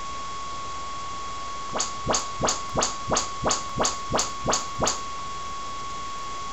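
Audyssey room-calibration test signal from an Onkyo receiver played through one of the surround speakers: a rapid series of about ten identical short sweep chirps, roughly three a second, starting about two seconds in and stopping about five seconds in. These are the measurement tones that the setup microphone picks up to set the speaker levels and distances.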